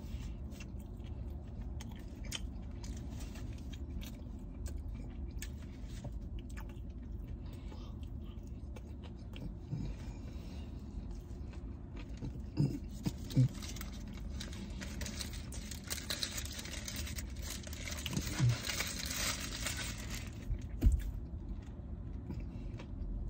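Close-up chewing of a cheeseburger slider, with the wax-paper wrapper crinkling partway through and a few short mouth sounds, over a steady low hum inside a car.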